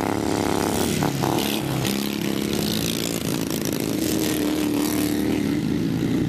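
Racing lawn mower engines running hard at high revs, their pitch stepping up and down.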